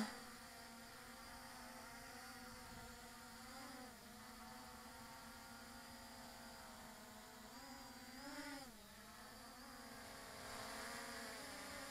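MJX Bugs 5W brushless quadcopter hovering, its motors and propellers giving a faint steady buzz that wavers in pitch twice as it holds position.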